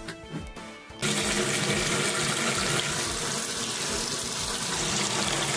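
Kitchen tap running water steadily, starting abruptly about a second in, after a short stretch of background music.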